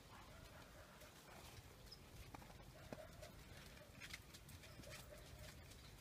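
Near silence: faint outdoor ambience with scattered soft clicks and a faint wavering tone now and then.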